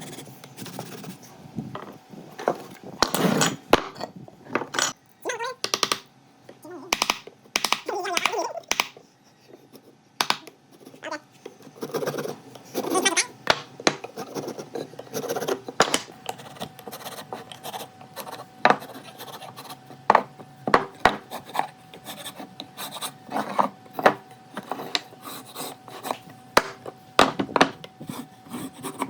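Timber being worked by hand: irregular knocks, taps and short scraping strokes of wood on wood and tools.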